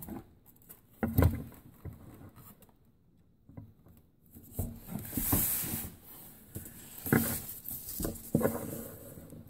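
Handling noise as the top half of a Philco-Ford record player is lifted out of its plastic base and turned over: a few knocks and bumps about a second in and twice near the end, with a rustle in between.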